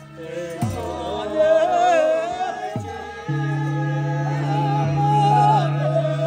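Processional music with singing: a wavering melody over two drum strokes about two seconds apart, with a steady low drone coming in about halfway through.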